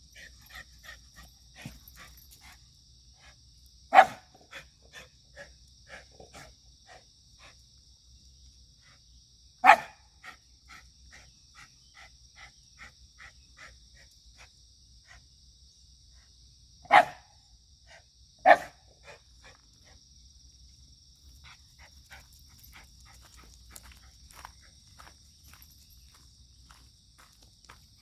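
White Shiba Inu barking four single times, several seconds apart, the last two in quick succession. A steady high chirring of insects runs underneath.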